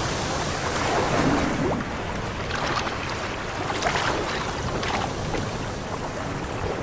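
Choppy sea water washing, with several splashes as seabirds fishing at the surface plunge into and take off from the water.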